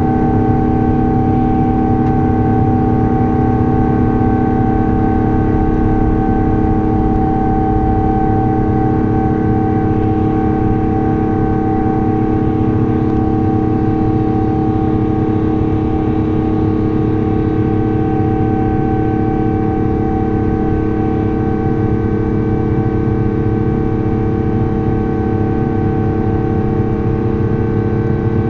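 Airbus A350's Rolls-Royce Trent XWB jet engines running steadily at takeoff thrust, heard inside the cabin: a loud, even rush of noise with several steady humming fan tones over it, not rising or falling.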